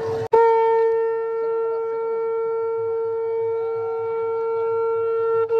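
Conch shell (shankh) blown in one long, steady note, with a brief click and break about a third of a second in.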